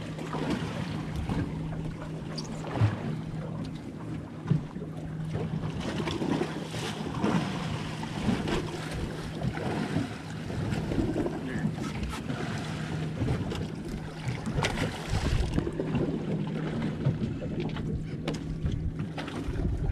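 Wind on the microphone aboard a small fishing boat on open water, over a steady low hum, with a couple of sharp knocks a few seconds in.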